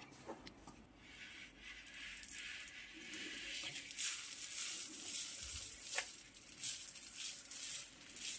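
Hand-cranked round-bottle labeling machine being turned: its rubber rollers roll a can along and press a paper label onto it, giving a steady hissing rub that grows louder about halfway through, with a few sharp clicks.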